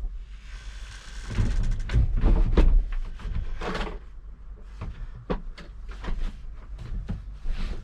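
Wooden pull-out campervan bed being slid and pushed back up into place: a scraping slide of boards with repeated knocks and clunks, loudest in the first few seconds.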